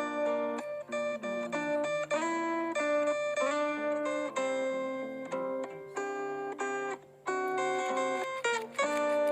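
Background music of plucked acoustic guitar, with notes in a quick rhythmic pattern.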